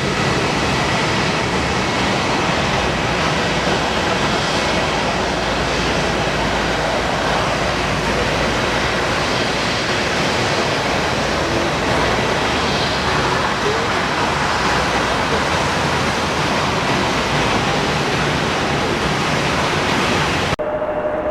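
Jet airliner engines running at high power, a loud, steady rushing noise that cuts off suddenly near the end.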